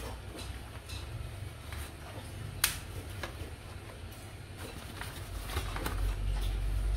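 Stiff moi moi leaves rustling and crackling as they are folded into a cone by hand, with a sharp click about two and a half seconds in and a low rumble building near the end.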